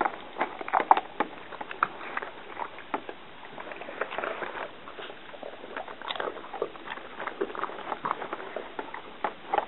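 A dog in a hard plastic cone nosing plastic Easter eggs apart on carpet and eating the treats inside: irregular clicks and taps of plastic knocking about, with chewing.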